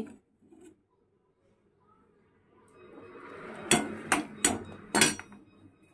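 A metal ladle scraping inside an aluminium cooking pot and knocking against it about four times, starting around halfway through.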